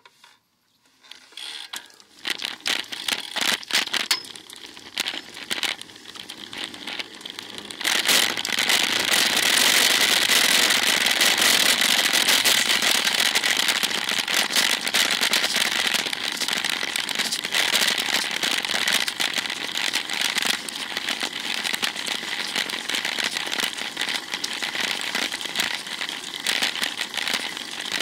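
Wind and road noise crackling on a bicycle-mounted action camera's microphone as the bike gets under way. After a couple of quiet seconds come scattered clicks, then from about eight seconds in a dense, steady crackle.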